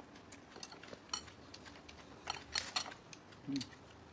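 Faint, scattered clicks and crackles from eating at a table, in small clusters about a second in and again between two and three seconds, with a short low hum about three and a half seconds in.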